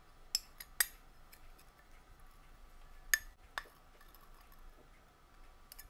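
Metal spoon tapping against a drinking glass while thick syrup is spooned down its side: a few light clinks, two in the first second and two more about three seconds in.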